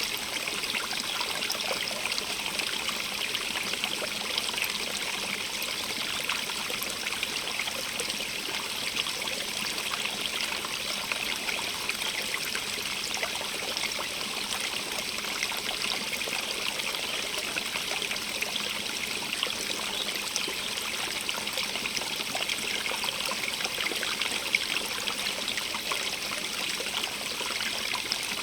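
Stream running steadily over stones, with a continuous rush and fine trickling and splashing.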